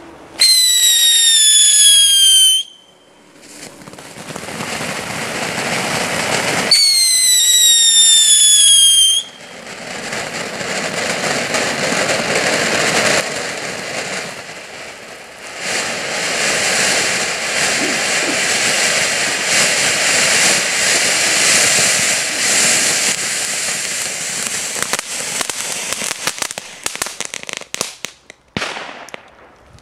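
Keller ground fountain firework going off: two loud whistles, each about two seconds long and falling in pitch, followed by a long hissing, crackling spray of sparks that dies away near the end.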